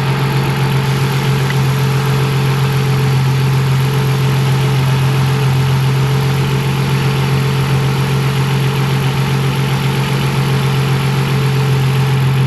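BMW 325i's straight-six engine idling steadily.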